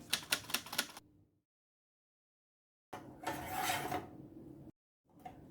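Kitchenware being handled: a quick run of clicks, then after a pause about a second and a half of clattering with a faint ringing note.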